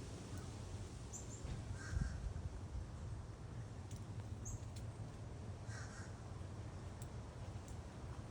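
Crow cawing twice, harsh calls about 2 and 6 seconds in, with a few brief high bird chirps in between over a steady low rumble.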